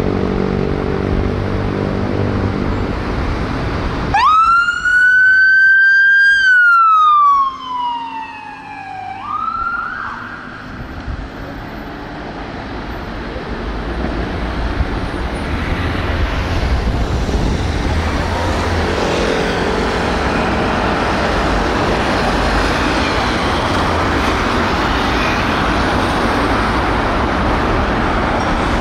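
A vehicle engine running, then, about four seconds in, a loud emergency-vehicle siren cuts in: one slow wail that rises for about two seconds, slides down over about three, and briefly climbs again. After that, traffic and tyre noise swells steadily.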